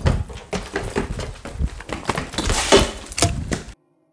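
A run of irregular knocks, thuds and clatter, like things being handled or bumped, that cuts off abruptly near the end.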